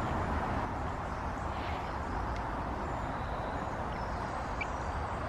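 Steady outdoor background rushing noise, with a few faint, short bird chirps above it.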